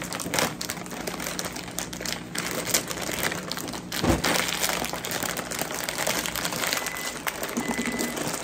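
Two crinkly potato chip bags being crumpled and tugged as they are pulled open by hand: a continuous crackling, with one sharper, louder crack about four seconds in.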